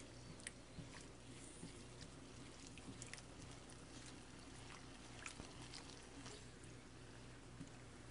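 Chicken pieces simmering faintly in soy sauce and brown sugar in a frying pan: quiet crackle with scattered small pops as the sauce starts to heat toward a boil, over a steady low hum.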